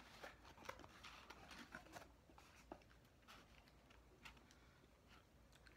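Faint crinkles, scrapes and light taps of cardboard fast-food burger boxes being handled and opened.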